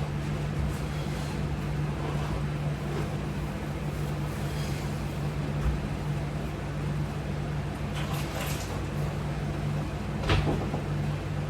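Steady low room hum, with a few soft rustles and a light knock about ten seconds in as a foam exercise floor mat is handled and laid out.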